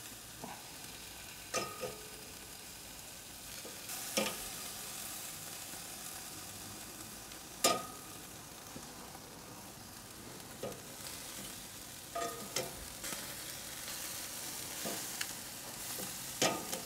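Chicken thighs sizzling on a hot grate over charcoal, with sharp metallic clinks of steel tongs against the grate as the pieces are turned and moved; the loudest clink comes a little past halfway.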